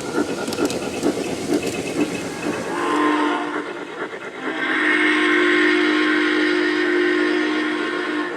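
Model steam locomotive's DCC sound system running with a steady rhythmic beat, then a short whistle toot about three seconds in and a long chime whistle blast held to the end.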